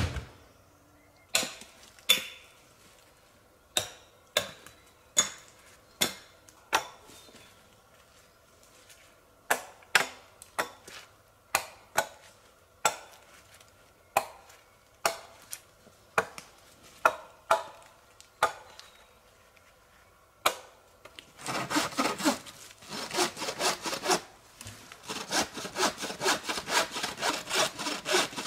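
Wooden poles and logs knocking sharply, one knock at a time at irregular intervals. About two-thirds of the way in, a hand saw with a 60 cm blade starts cutting through a pole in quick, even back-and-forth strokes, with one short pause.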